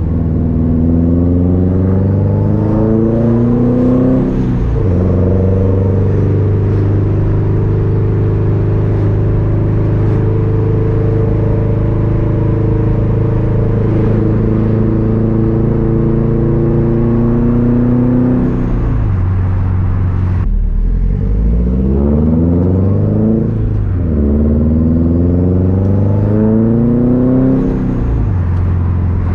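Subaru STI's turbocharged flat-four with an unequal-length exhaust, pulling through the gears. The engine note climbs and drops sharply at each shift, holds steady for a long stretch in the middle, then climbs and drops again three times near the end.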